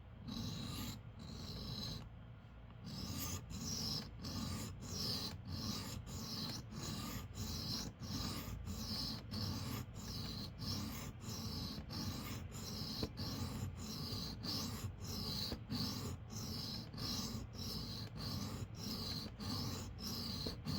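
Pocket knife blade being stroked across a sharpening stone, a rasping scrape repeated about twice a second after a brief pause near the start. The blade's second side is being ground toward an apex.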